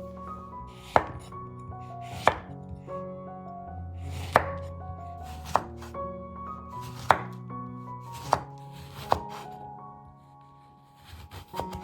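About seven sharp single knocks, one every second or two, over soft background music with held notes.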